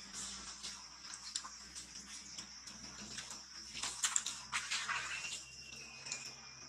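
Dry leaf litter crackling and rustling as a long-tailed macaque walks and forages through it, the crackles thickest about four to five seconds in, over a steady high insect drone. A thin, high whistling tone, falling slightly, sounds in the last second or so.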